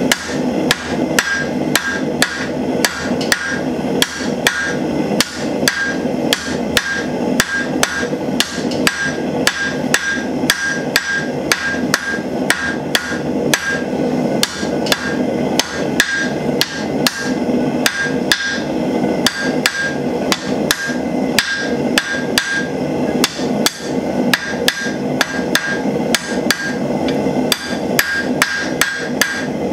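Hand hammer striking a red-hot steel bar on an anvil in steady blows, about two a second, each with a short metallic ring from the anvil. A steady rushing roar, from the running propane forge burner, sits underneath.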